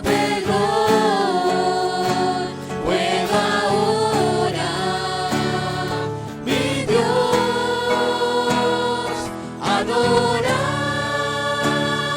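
Worship song sung by several voices over instrumental accompaniment, with long held sung notes.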